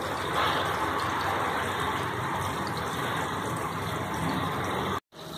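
Stuffed green capsicums sizzling in oil in a covered frying pan on a low flame, a steady frying hiss that cuts off abruptly near the end.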